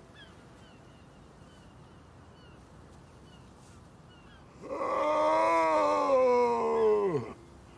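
A man's long, anguished howl of grief, a stage actor's cry as King Lear over Cordelia's dead body, coming about halfway in. It holds for over two seconds and falls steeply in pitch as it breaks off.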